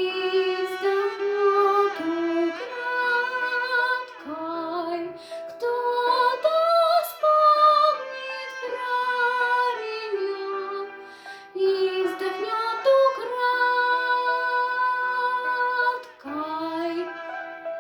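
Music: a solo melody line of long held notes with vibrato and short slides between notes, carried throughout.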